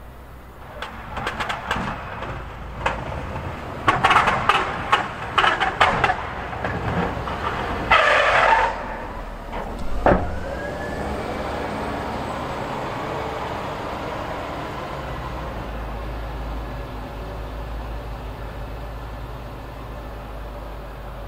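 Wheel loader working snow with its plow: a run of clanks and knocks, a short rushing burst about eight seconds in and a single bang about ten seconds in, then the diesel engine running steadily.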